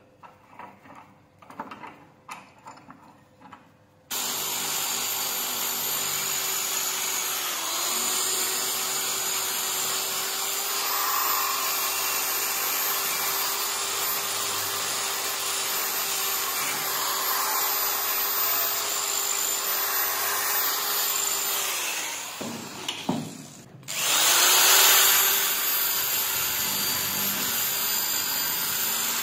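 A few light knocks and clicks of the scissors being handled in a steel bench vice, then an electric drill with a wire wheel brush starts abruptly and runs steadily, scrubbing rust off the steel scissor blade. Past the middle it winds down and stops for about a second, then starts again with a loud surge and runs on.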